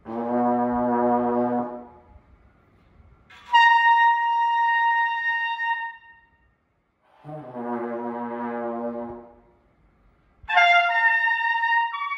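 A valve trombone holds a low note for about two seconds, and a piccolo trumpet answers with a much higher held note. The trombone then sounds its low note again, and the piccolo trumpet plays a few quick high notes near the end. It is the same idea of pitch shown on two brass horns: the longer tubing gives the lower note, the short piccolo trumpet the higher.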